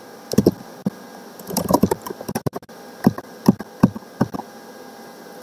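Typing on a computer keyboard: irregular keystrokes, some single and some in quick little runs, with short pauses between them.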